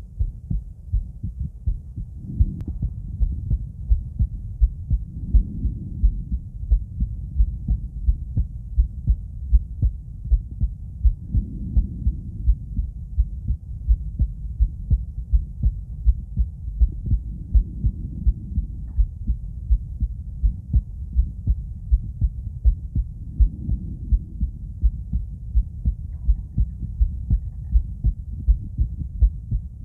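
A woman's heartbeat heard through a stethoscope chest piece into a microphone: steady, regular lub-dub heart sounds. A soft low rushing swells and fades about every six seconds.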